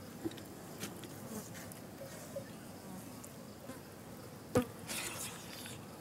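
A hand mixing rice in a metal bowl, with soft squishing and one sharp click about four and a half seconds in, over a buzz of flies.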